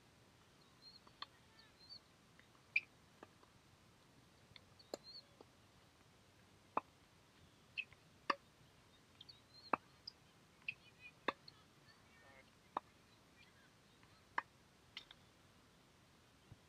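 Tennis balls knocking on a hard court: faint, sharp bounces and racket hits at irregular intervals, roughly every one to two seconds. Small bird chirps come in between.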